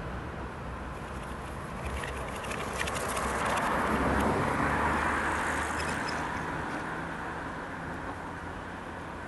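Street traffic noise: a steady low rumble, with one vehicle passing by that swells to a peak about four seconds in and then fades. A brief light rattle comes as it approaches.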